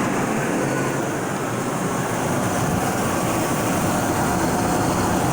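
A 5.7 L Vortec V8 running steadily just after starting, its serpentine belt routed over an idler pulley that bypasses the A/C compressor; the engine is running good.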